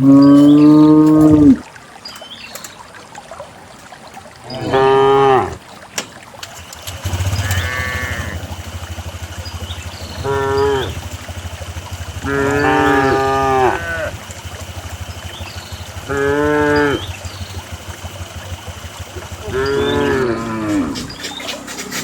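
Cows mooing in turn: about seven calls a few seconds apart, the first and loudest right at the start. A low steady hum sets in about seven seconds in.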